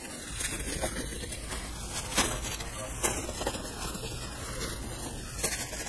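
Denim fabric rustling and scrunching in the hands as a safety pin pulls elastic through bias-tape casings, with scattered soft clicks, a couple of them louder.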